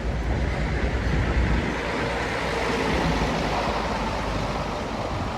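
Heavy road vehicle passing close by: a low engine rumble for the first second and a half, then tyre and road noise that peaks a few seconds in. No horn is sounding.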